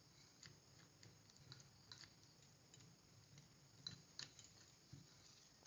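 Near silence with faint, irregular light clicks: a wooden rolling pin being rolled over peanut burfi mixture pressed into a plastic-lined tray.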